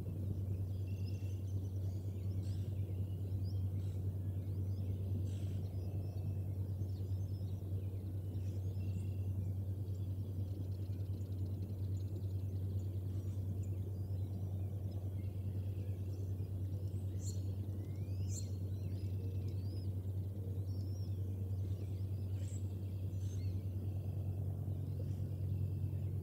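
A steady low hum with a rumbling haze beneath, and scattered short high bird chirps and whistles over it throughout.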